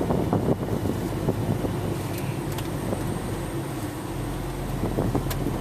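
Vehicle driving along the road: steady engine and road noise.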